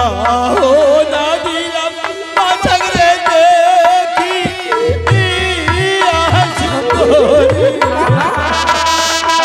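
Live Manasa-gaan jatra music: a voice singing a wavering melody over instruments, with deep drum beats at the start and again through the second half.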